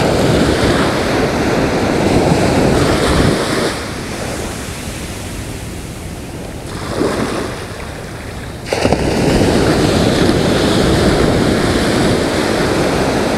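Ocean surf washing onto the beach, mixed with wind buffeting the microphone. The sound eases off for a few seconds in the middle and comes back up suddenly.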